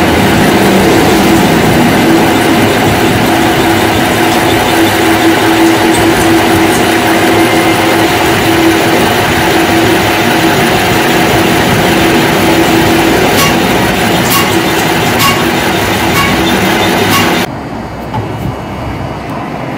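Metal lathe running and cutting a metal shaft held in its spinning chuck: a steady machine drone with a constant mid-pitched tone and a few light ticks. Near the end it cuts off abruptly to a much quieter background.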